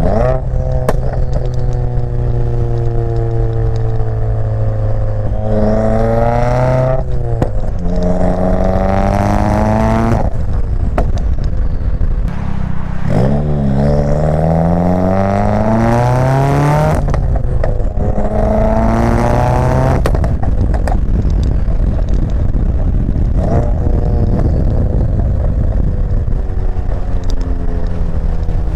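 Subaru WRX's turbocharged flat-four running through a catless J-pipe and Greddy RS-Race catback exhaust, pulling hard about four times. Each time the pitch climbs and then drops away, between stretches of steady drone over a constant low rumble.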